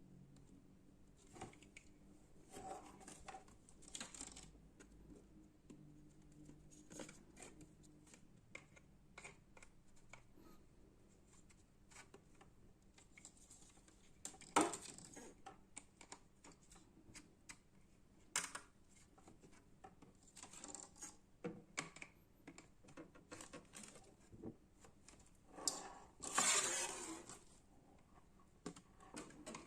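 Scattered clicks, taps and rustles of fan parts and packaging being handled during unboxing, with a sharp knock about halfway through and a longer rustle of packaging near the end.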